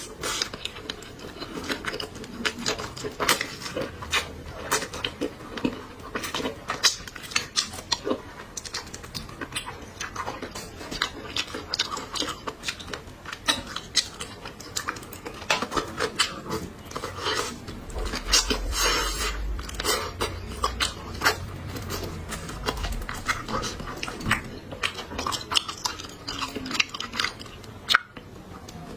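A person eating chicken head close to the microphone: wet chewing and lip smacking with many sharp little clicks, and utensils now and then clinking against a dish.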